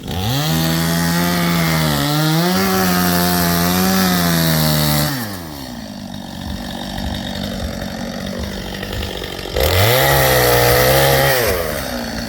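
Chainsaw revved up and cutting limbs off a felled pine, in two cuts: a long one of about five seconds at the start, then a spell of slower running, then a shorter cut of about two seconds near the end.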